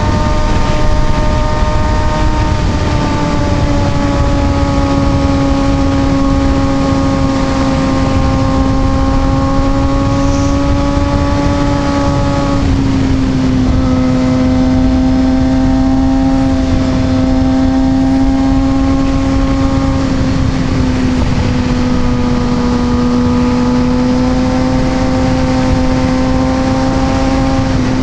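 Kawasaki ZX-6R 636's inline-four engine running at a steady cruise under light throttle, its pitch sagging slowly, with a small step down about twelve seconds in and another dip around twenty seconds. A steady rush of wind noise runs underneath.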